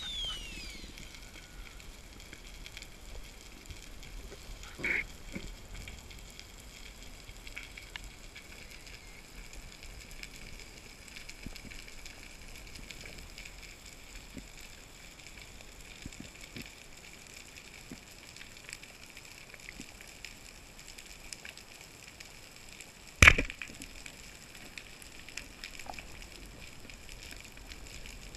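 Steady underwater hiss, with a soft click about five seconds in and one loud, sharp crack about 23 seconds in: a speargun being fired at a fish.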